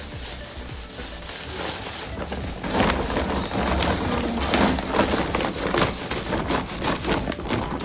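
Thin plastic bag crinkling and rustling as it is handled, with a dense run of crackles from about three seconds in.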